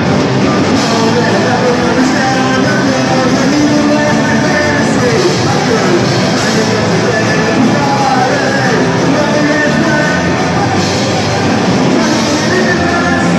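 Live band playing loud rock music with electric guitar and vocals.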